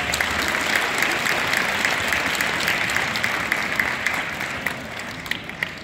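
Audience applauding. The applause dies down near the end to a few scattered claps.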